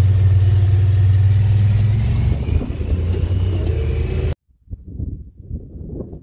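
Vehicle rumble heard from inside the cab while driving slowly on a rough dirt road: a steady low engine drone that eases off about two seconds in. After about four seconds it cuts off abruptly, leaving faint, uneven wind noise on the microphone.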